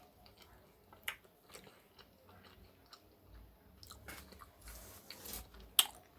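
Faint eating sounds: a person chewing a mouthful of food, with scattered small clicks and a few sharper ones.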